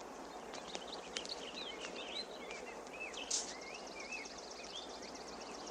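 Outdoor ambience: birds chirping over a steady hiss. In the second half, an insect joins with a rapid, even, high-pitched ticking trill.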